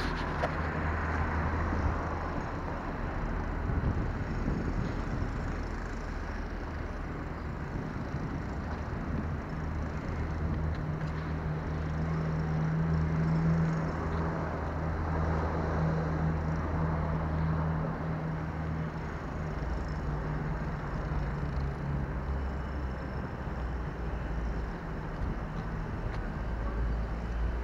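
Car driving: a steady low engine hum over continuous road noise.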